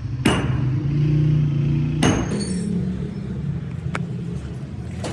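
An engine running steadily, with two loud, sharp metallic impacts about two seconds apart.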